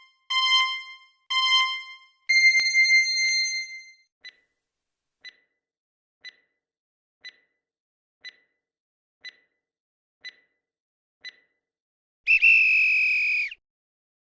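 Electronic quiz countdown timer sound effect: three short beeps and a longer, higher beep, then single ticks about once a second, ending near the end in a louder held tone of about a second, like a time's-up signal.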